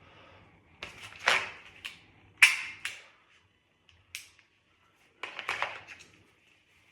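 CZ P07 pistol in double-action dry-fire practice: several short clusters of sharp clicks from trigger pulls dropping the hammer on an empty chamber, mixed with handling of the gun.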